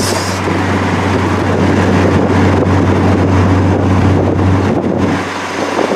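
Triumph TR3A's four-cylinder engine running steadily as the car drives along the road, heard from on board with wind on the microphone. The engine note drops about five seconds in.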